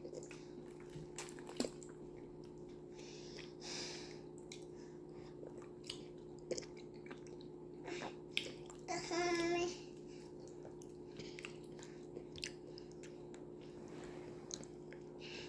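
Close-miked eating of fufu and stew by hand: scattered short wet clicks and smacks of chewing and lips over a steady low hum. About nine seconds in, a young child's short sing-song babble.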